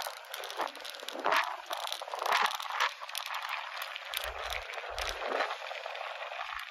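Bicycle tyres rolling on a gravel path: a steady crackle of small stones under the wheels, with two brief low rumbles about four and five seconds in.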